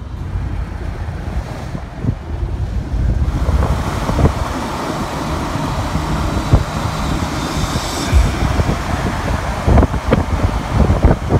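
Wind buffeting the microphone from a moving vehicle, over the low rumble of road and engine noise; it grows louder about three seconds in, with irregular gusting thumps through the second half.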